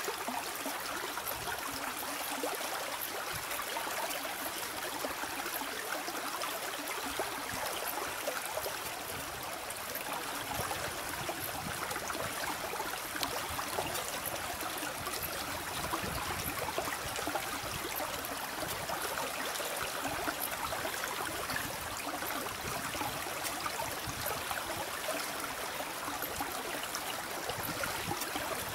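Distant Airbus A319's IAE V2500 jet engines at low power as the aircraft taxis and lines up on the runway, heard as a steady, even hiss.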